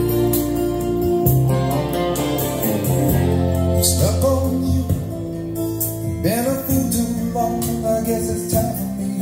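A song's instrumental passage led by guitar, with sliding note bends about four and six seconds in, played back through Grundig Box 353 bookshelf speakers driven by a SABA MI210 amplifier.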